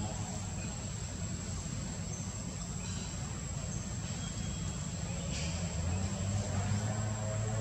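Outdoor ambience: a steady high-pitched insect drone, cricket-like, over a low rumble, with a few faint short sounds.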